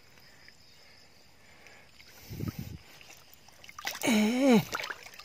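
Water splashing as a hand grabs a large dead snakehead in shallow water. Near the end comes a loud, drawn-out exclamation from a man, its pitch dropping at the end.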